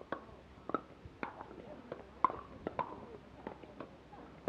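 Pickleball paddles striking a plastic pickleball in a rally, about ten sharp pocks at an irregular, quickening pace.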